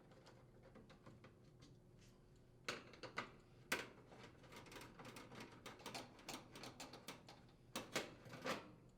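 Irregular small metal clicks and ticks of a Phillips screwdriver working screws out of a range's sheet-metal front panel, with a few louder clicks about three seconds in and again near the end.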